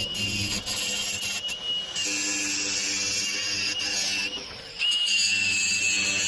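A metalworking tool running steadily with a high whine over a hiss, cutting out a little past four seconds in and starting again about half a second later.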